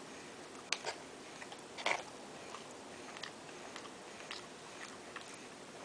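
Faint chewing of food, with a few short crunches and mouth clicks, the loudest about a second and two seconds in.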